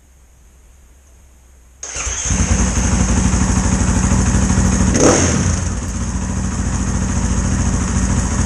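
A dirt bike's single-cylinder four-stroke engine catches after about two seconds and settles into a steady idle, with one brief blip of the throttle about halfway. This is its first start-up after a top-end rebuild (cam and valves).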